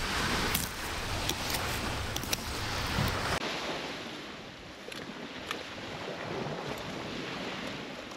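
Wind on the microphone and small waves washing on a sandy beach, with a few faint clicks in the first three seconds. About three seconds in, the sound cuts to a quieter, more distant wash of wind and water.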